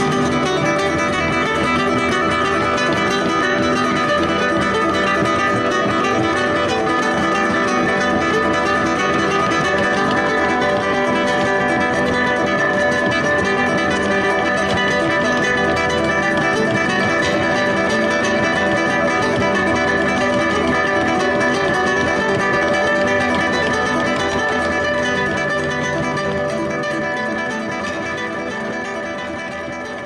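Acoustic guitar music, many notes ringing together over a steady low note, fading out over the last several seconds.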